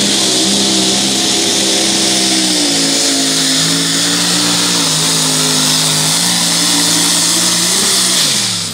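Pulling truck's engine at full throttle under load, its revs sagging in steps as it drags the weight sled, with a loud high hiss on top. Near the end the revs jump briefly, then fall away steeply as the throttle is lifted at the end of the pull.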